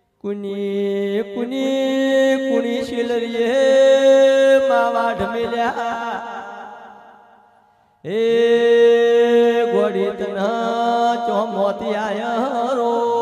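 Devotional folk aalap: long drawn-out held notes that step from pitch to pitch, in two phrases. The first fades away about eight seconds in and the second begins right after.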